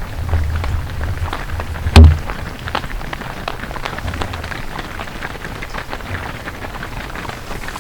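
Herd of cattle walking past, a dense patter of hooves clattering over the road, with a low rumble in the first two seconds and one sharp knock about two seconds in.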